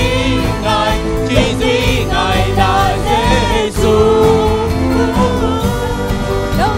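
Vietnamese Christian worship song: sung vocals over a steady instrumental backing.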